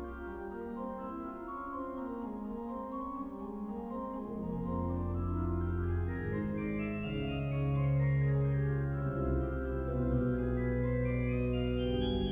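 Pipe organ playing a passacaglia: sustained chords over a moving line, with a deep pedal bass coming in about four seconds in and the music swelling louder.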